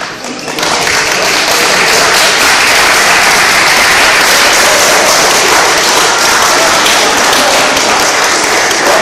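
Spectators clapping loudly at the end of a grappling bout, beginning with a sharp clap right at the start and swelling within the first second into steady applause.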